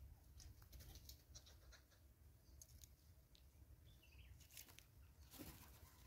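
Faint, scattered clicks and ticks of a southern red-billed hornbill pecking seed off a wooden tree stump, with a short falling bird chirp about four seconds in and a brief rustle near the end.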